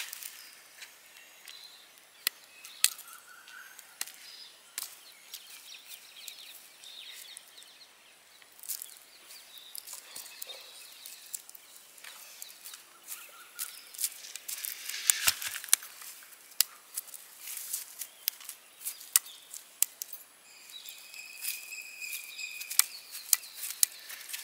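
Cashew nuts in their shells crackling and popping as they roast over an open fire: irregular sharp cracks, thickest around the middle and again near the end.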